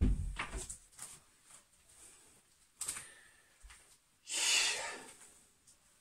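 Knocks and clinks of iron weight plates and chain on a weight belt as it is put on, starting with a heavy knock, with a longer rushing noise a little past four seconds in.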